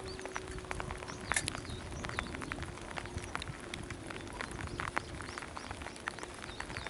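Rain pattering close to the microphone: many irregular, sharp raindrop taps over a soft hiss. A faint steady hum runs under it and fades about halfway through.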